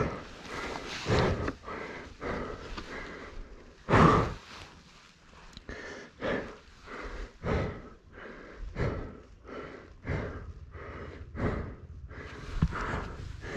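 A person breathing hard and panting from exertion, loud irregular gasping breaths about once a second, the strongest about four seconds in.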